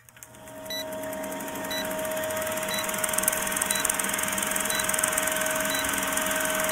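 Film-leader countdown sound effect: the steady whirring hiss of a running film projector, fading in over the first two seconds, with a short high beep once a second as each number counts down.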